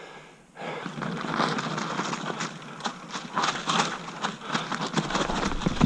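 Mountain bike rolling downhill over dirt, leaves and loose stones: tyres crunching and the bike rattling with a dense run of small clicks and knocks, starting about half a second in. A low rumble builds near the end as the bike speeds up.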